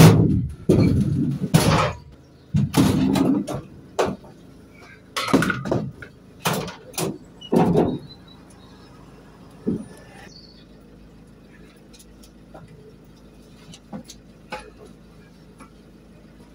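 A run of loud clanks and thumps as metal exercise equipment is shifted about in the back of a van, over the first eight seconds or so, then only a few faint knocks.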